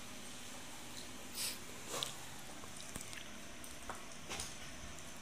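Faint soft, wet noises of fingers tearing apart tender stewed cow's foot, a few short ones over a steady low hiss.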